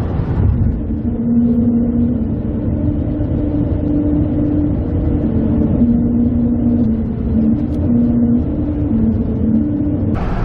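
Truck cab road noise crossing the Mackinac Bridge: a heavy low rumble with a steady hum from the tyres running on the steel grate deck. The hum's pitch steps back and forth between two notes.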